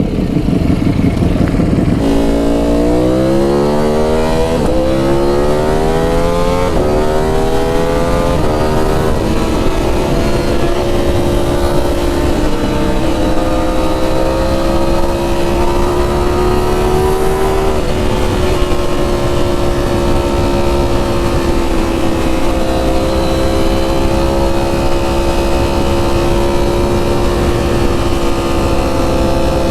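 Ducati Streetfighter V4 S's 1,103 cc V4 engine through an SC Project titanium exhaust, accelerating hard through several gears, its pitch climbing and dropping at each upshift, then holding steady revs at speed.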